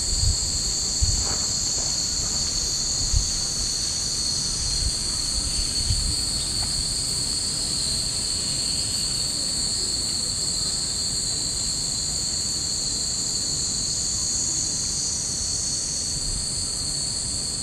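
Cicadas buzzing in a steady, high, continuous drone from the trees, with low wind gusts buffeting the microphone in the first few seconds.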